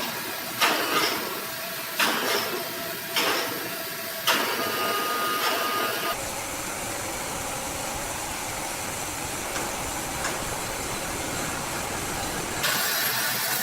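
Sawmill machinery running with a steady hiss and hum, with four sharp knocks about a second apart in the first half, then a fuller steady machine noise.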